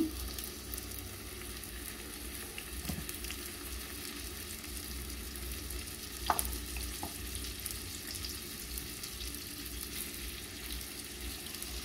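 Seasoned chicken pieces sizzling and crackling in melted butter in a hot frying pan as they are laid in to sear, with one brief louder click about six seconds in.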